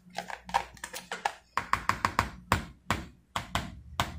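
A spoon tapping and knocking against a bowl while potato mash is stirred and mixed, a quick irregular run of taps, about four a second.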